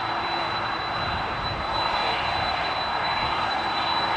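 Airplane engines running with a steady roar and a thin, steady high whine, growing slightly louder about two seconds in.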